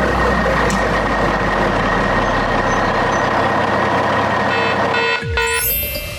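Heavy vehicle engine sound effect running steadily with a held tone over it; about five seconds in it breaks off into a falling low sound and a quick rising whistle-like sweep.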